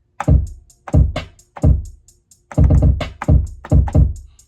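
Programmed drum-machine beat playing back from a DAW: deep, booming kick drums in a syncopated pattern over a steady run of hi-hat ticks, about four a second. The kicks come in a quarter second in, after hi-hats alone.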